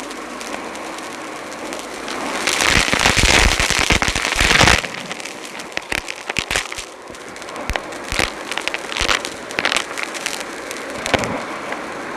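Dyson Light Ball upright vacuum sucking up crunchy debris: dense crackling and rattling of bits through the cleaner over its running airflow. It is loudest for about two seconds a few seconds in, then thins to scattered clicks.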